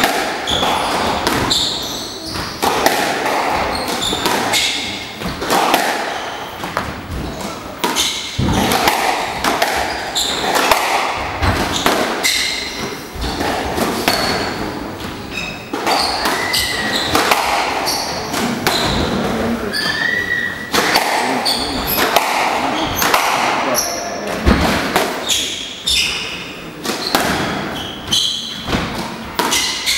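Squash rally: the hard rubber ball cracks off rackets and thuds against the front and side walls at an irregular pace, with sneakers squeaking on the wooden court floor, all echoing in a large hall. Spectators' voices murmur underneath.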